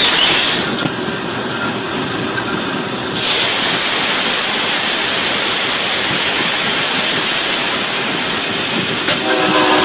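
A train passing at speed: a loud, steady rushing noise that turns brighter about three seconds in. A multi-tone train horn starts sounding near the end.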